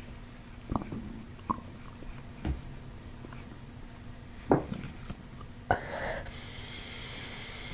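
Gut sounds from a patient's abdomen during visceral gut-release work: five short gurgling pops spread over about five seconds, the loudest two near the middle. Near the end comes a long breath.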